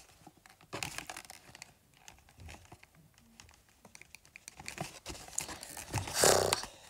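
Gift-box packaging crinkling and scraping as a small perfume bottle is worked out of its holder, with scattered small clicks and a louder rustling tear about six seconds in.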